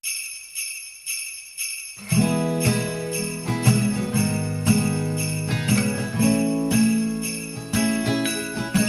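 Sleigh bells jingling in a steady beat, about two shakes a second, alone at first. About two seconds in, the instrumental backing of a Christmas pop song joins them, with bass and chords.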